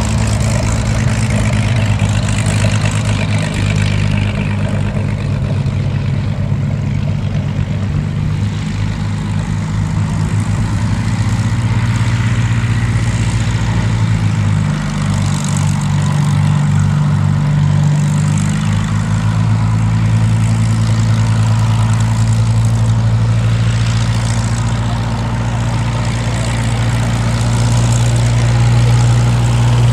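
A Hawker Hurricane's Rolls-Royce Merlin V12 engine runs at low power as the fighter taxis past, a steady low engine note. The note shifts a little about halfway through.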